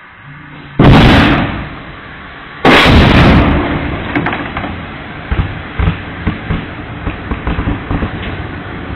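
Old Panasonic Quintrix CRT television being blown up: two sudden loud blasts about two seconds apart, each tailing off in a short rush, followed by a run of sharp crackles and pops.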